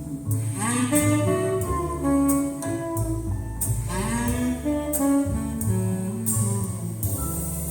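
Instrumental close of a jazz ballad: a saxophone plays gliding melodic phrases over a steady bass line and regular high cymbal-like taps, settling onto a held final chord near the end.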